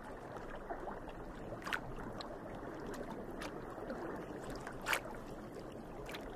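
Steady, soft watery wash of underwater ambience, with two sharp clicks: a light one near two seconds in and a louder one about five seconds in.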